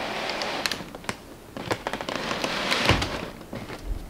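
Cardboard shoeboxes rubbing, tapping and knocking against each other as one box is worked out of a tall, leaning stack, with scattered sharp taps and a low thump about three seconds in and another near the end.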